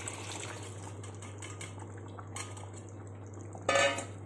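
A spoon knocking lightly against a cooking pan as cooked green beans are added to a masala, then one louder ringing clang of the spoon on the pan near the end.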